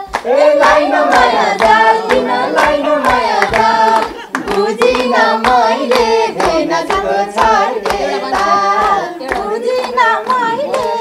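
Nepali dohori folk singing: a voice singing a sliding folk melody over a steady beat of hand-clapping, several claps a second.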